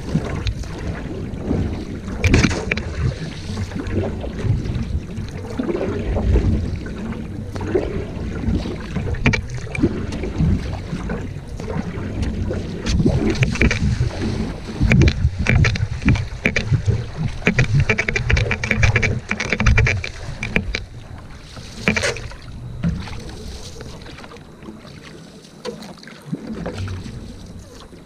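Single-blade paddle strokes driving a sprint canoe: the blade splashing and pulling through the water, with wind buffeting the microphone. It gets quieter over the last few seconds.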